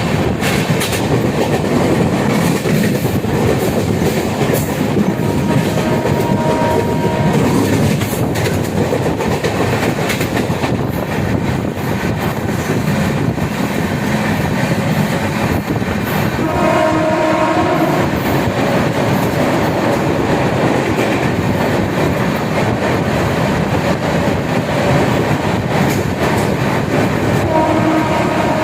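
Moving train running at speed, its wheels clattering over the rails in a steady loud rumble. The train horn sounds briefly about five seconds in, again for a little over a second about halfway through, and once more near the end.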